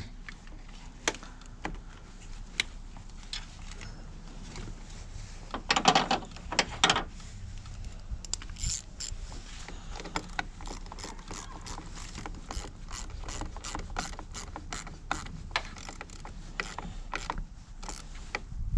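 Ratchet wrench clicking in repeated strokes as a car battery terminal clamp nut is tightened onto its post, with a louder metallic clatter about six seconds in.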